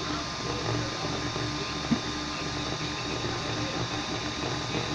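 3D printer running, its stepper motors whirring in short, changing tones over a steady hum, with a single click about two seconds in.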